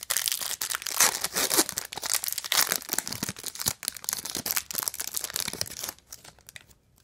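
Foil trading-card pack wrapper crinkling and tearing as it is ripped open: a dense crackle that stops about six seconds in.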